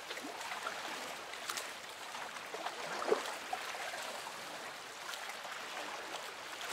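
Sea water lapping and trickling close to the microphone, which is held just above the surface, with a brief louder gurgle about three seconds in.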